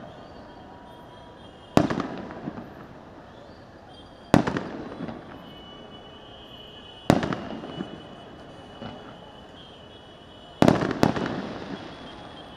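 Aerial firework shells bursting in the night sky: five sharp bangs, each trailing off into an echoing rumble, spaced two to three seconds apart, with the last two coming in quick succession near the end.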